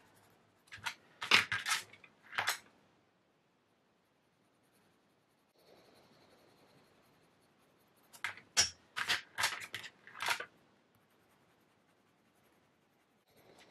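Colored pencil scratching over smooth Bristol paper in short, quick shading strokes. A handful of strokes comes about a second in and another handful around eight to ten seconds in.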